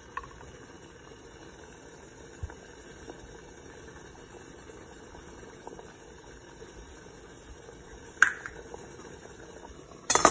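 Water boiling in an idli steamer, a steady bubbling hiss under the stacked idiyappam plates. There is a sharp metal clink about eight seconds in, and the steel steamer lid clatters on near the end.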